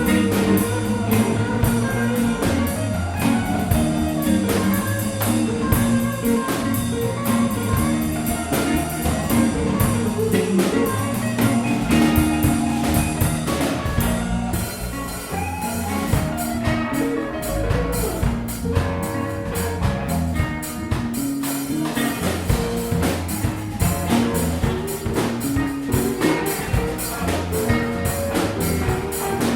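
A live band playing: a drum kit keeps a steady beat under pitched instruments.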